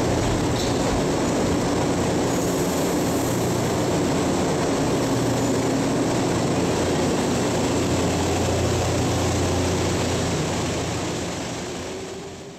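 CAF NS-07 rubber-tyred metro train at the platform, a steady loud hum and running noise as it closes up and pulls out. The sound fades away over the last two seconds or so.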